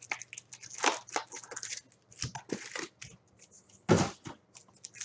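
Wrappers of 2017-18 Synergy hockey card packs being torn open and crinkled, in quick crackles, with one louder crunch about four seconds in.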